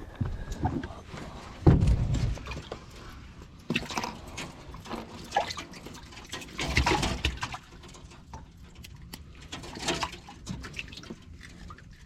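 Irregular knocks and clatter in a fishing boat, mixed with splashing and dripping water, with a heavy thump about two seconds in.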